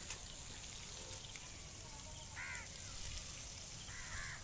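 A crow cawing twice, about a second and a half apart, over quiet outdoor background.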